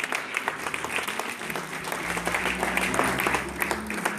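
Congregation applauding: many people clapping at once, with the claps overlapping densely and irregularly.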